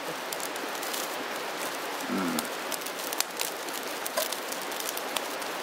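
Steady rain patter: an even hiss dotted with many small drop ticks.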